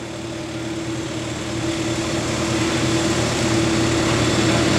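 Motor of a tube-coping machine running, driving a large hole saw used to cope aluminium trike seat-frame tubes. It is a steady hum with a wide hiss that grows steadily louder.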